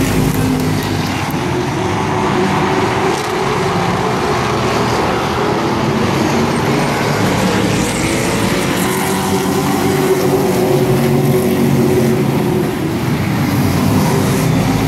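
A pack of racing trucks running at speed around a short oval track, their engines loud and continuous, with pitch rising and falling as they circulate.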